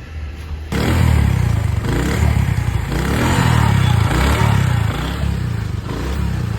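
Motorcycle engine running, then revved hard from under a second in, its pitch rising and falling over several seconds.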